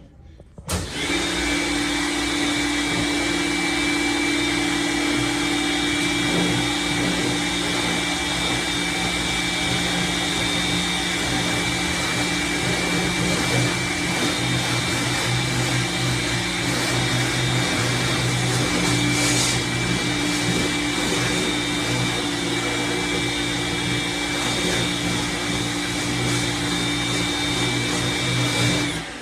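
Lavor Fast Plus 130 electric pressure washer running, its motor and pump giving a steady whine. It starts about a second in and cuts off just before the end.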